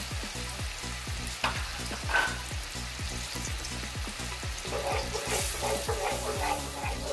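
Garlic-butter cream sauce bubbling and sizzling in a frying pan, with two sharp clicks about one and a half and two seconds in. A wooden spoon stirs through the sauce near the end.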